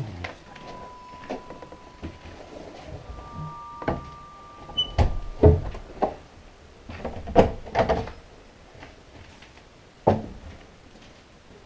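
Old wooden interior door being handled and pushed open, giving a cluster of knocks and thuds in the middle and one more sharp knock about ten seconds in.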